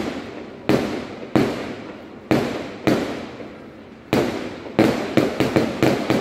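Fireworks display: about a dozen aerial shell bursts going off one after another, each sharp bang dying away in an echo, coming faster from about four seconds in.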